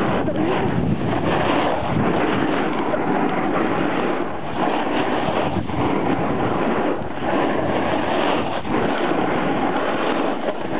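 Wind rushing over a handheld camera's microphone during a fast downhill ski run, mixed with skis sliding on machine-made snow: a steady, loud rush with a few brief dips.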